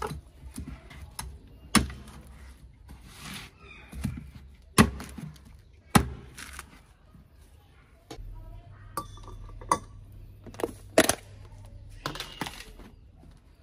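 Machete blade chopping into a young green coconut's husk and shell on a wooden table: a series of sharp chops a second or several apart. A steady low hum comes in a little past the middle.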